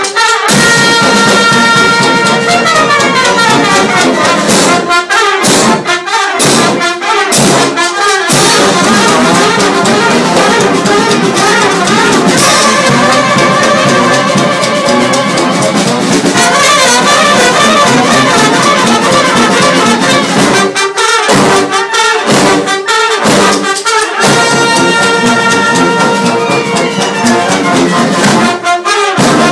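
Large Balkan-style brass band playing loud, live music: trumpets, trombones and sousaphone over drums, with a clarinet. A few seconds in, the horns slide down together, and twice they break into a run of short, punchy hits with drum strokes between.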